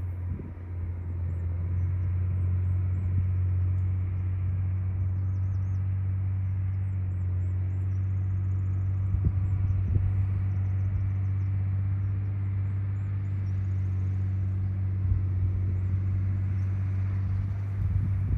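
John Deere 670 GP motor grader's diesel engine running at a steady pitch. It gets louder over the first couple of seconds, then holds, with a few light knocks.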